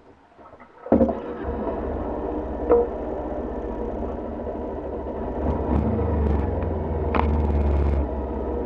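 Kawasaki sport bike engine starting with a sharp burst about a second in, then idling steadily, running a little louder for a few seconds near the end.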